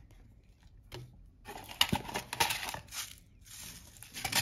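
Paper cards and a thin cardboard box rustling and crackling as they are handled and pulled apart. Most of the rustling comes in the middle, with a few sharp crackles, and a shorter burst near the end.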